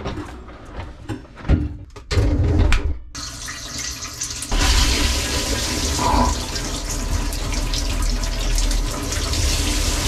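A few knocks and clatters, then from about four and a half seconds in a steady wash of water spraying over a low rumble, as from a dishwasher running its wash cycle.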